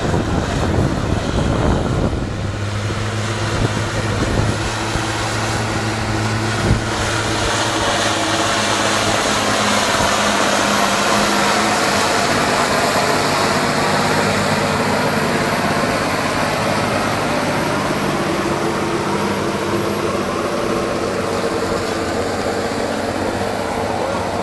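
Valtra T190 tractor's six-cylinder diesel engine running steadily under load as it pulls a plough through heavy wet soil, over a wide rushing noise of the tractor and the turning earth.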